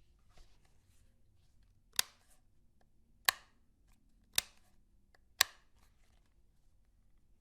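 Four sharp clicks, roughly a second apart, from handling a Ruger 10/22 .22 semi-automatic rifle, with faint rustling of handling before them.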